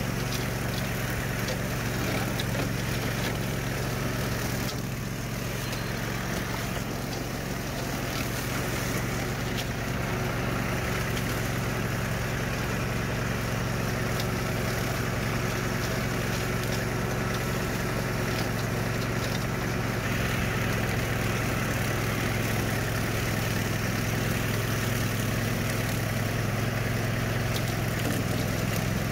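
Swisher Brush King tow-behind rough-cut mower running steadily, its Kawasaki engine and spinning blade cutting through brush and tall grass, over the engine of the subcompact tractor towing it.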